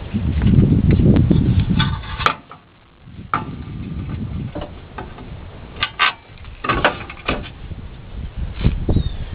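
Metal clanks and clicks of hand tools and steel parts being handled during CV axle reinstallation work on a pickup's front suspension. A low rumbling scrape comes first and stops abruptly after about two seconds. After a short quiet gap, several sharp metallic knocks and clinks follow.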